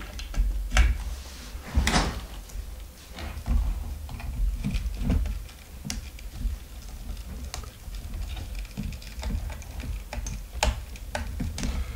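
Irregular plastic clicks and knocks as a graphics card's PCIe power cable connector is handled and pushed into its socket on the card, over dull low bumps from the card and bench being handled.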